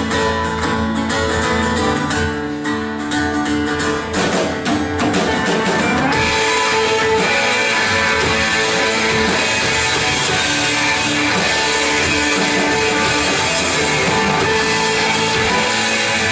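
Live church worship band playing a song's instrumental intro: rhythmic guitar strumming, with the sound filling out as the full band and drums come in about six seconds in.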